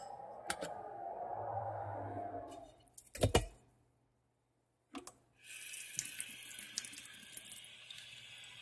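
Kitchen tap running water into a sink, a steady hiss with small splashing ticks that starts about five and a half seconds in. Before it, a softer steady rushing, then one heavy dull thump a little after three seconds.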